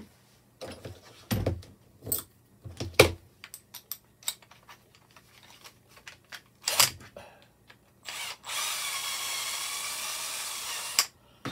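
Clicks and knocks of a cordless drill being handled as a 5 mm bit is fitted. About eight seconds in, the drill's motor starts, runs steadily for about three seconds, then stops.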